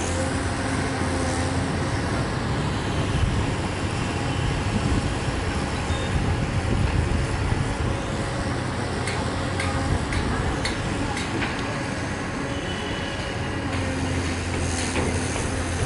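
Komatsu PC200 hydraulic excavator's diesel engine running steadily under load while the bucket digs into soil, with a few sharp clicks and knocks about nine to twelve seconds in.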